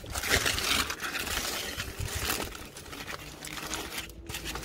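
Aluminium foil crinkling and rustling as hands unwrap a foil parcel, loudest in the first second.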